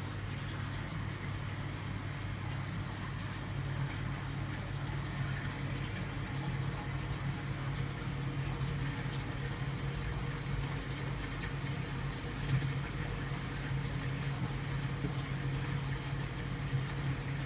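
Aquarium pump running steadily with a low hum, with water moving through the tank.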